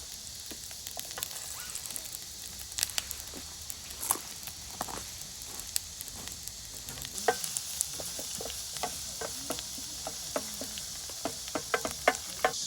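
Oil sizzling in a pan on a camp stove, with frequent clicks and scrapes of a utensil stirring it. The sizzle grows a little stronger about seven seconds in, and the stirring clicks come thicker toward the end. The oil is being heated as the base for chili oil.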